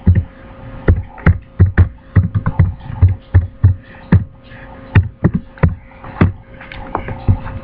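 Computer keyboard being typed on in irregular runs, each keystroke a sharp click with a dull thump, over a faint steady hum.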